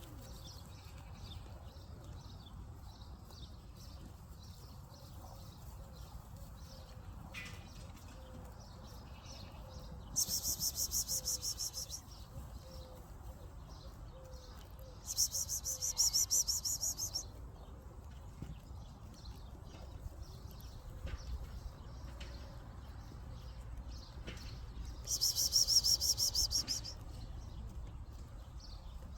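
Small birds chirping on and off, broken three times by a loud, high, rapidly pulsing buzzing trill lasting about two seconds each: a little over a third of the way in, just past halfway, and near the end.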